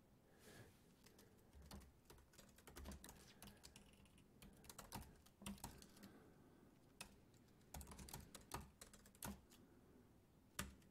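Computer keyboard typing: faint keystrokes in short irregular runs, with one lone keystroke near the end.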